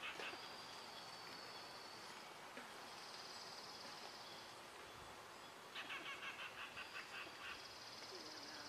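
Faint wild birds calling: high buzzy trills come and go, and past the middle comes a rapid run of about ten repeated notes, some six a second.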